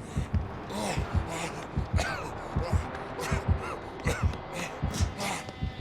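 Snoring with snorts and gasping breaths, over irregular short low thumps.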